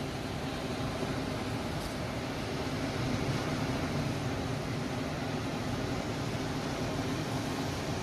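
Sea waves washing onto a rocky shore, a steady, even rushing noise with no breaks.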